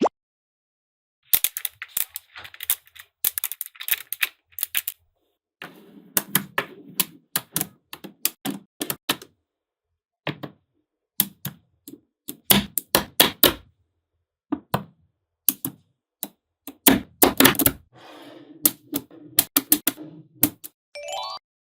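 Small magnetic balls clicking sharply as they snap together, in quick clusters of clicks with silent gaps between, and twice a low rattling as balls roll and shift against each other. A short rising tone sounds near the end.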